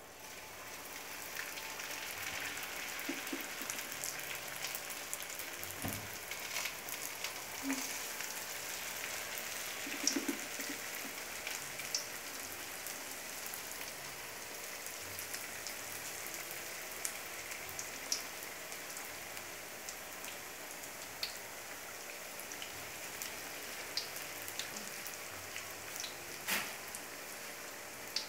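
Turon (saba banana rolled in lumpia wrappers) being laid into hot cooking oil and deep-frying: a steady sizzle that starts about half a second in, with scattered crackles and pops. A single low knock comes about six seconds in.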